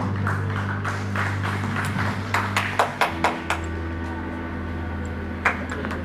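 Electronic keyboard holding sustained low chords, moving to a new chord about three seconds in, with a few scattered handclaps over the first half and one more near the end.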